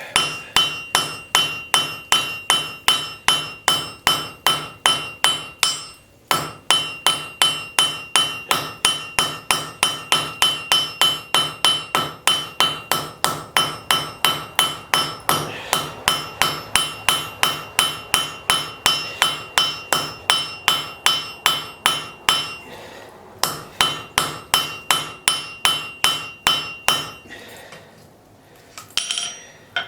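Blacksmith's hammer striking a hot railroad spike on an anvil in a steady rhythm of about two to three blows a second, each blow ringing. It breaks off briefly twice and stops a few seconds before the end.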